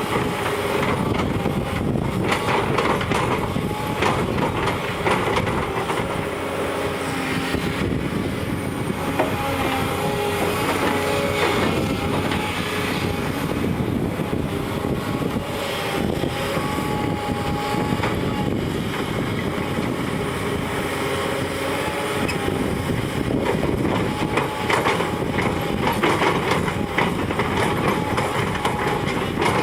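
A tracked bulldozer or excavator working, its engine running under a steady clatter of metal tracks, with intermittent squeaking tones.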